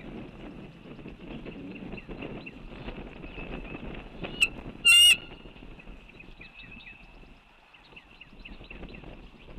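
A chorus of many waterfowl calling at a distance. About four and a half seconds in there is a short click, and just after it one loud, sharp, brief bird call close to the microphone.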